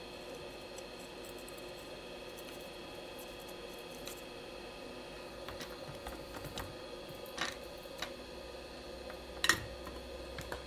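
A steady electrical hum with a thin high whine over it. In the second half come a few light ticks and clicks of tools and objects handled on a workbench, the sharpest about a second before the end.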